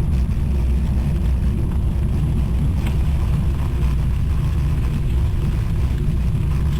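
Wind buffeting the microphone of a camera riding along on a moving bicycle: a steady low rumble.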